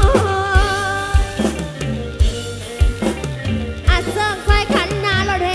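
Live Thai rot hae band music played loud through a truck-mounted sound system: a woman sings into a microphone over a drum kit, bass and a steady kick-drum beat. The singing thins out midway and comes back strongly near the end.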